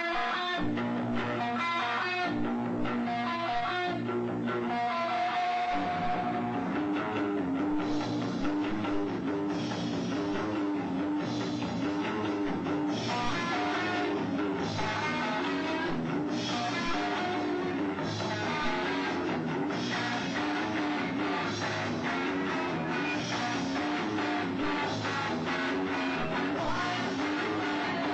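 Rock band playing live at a sound check, with guitar and drum kit. The playing is sparser at first and fills out about six seconds in.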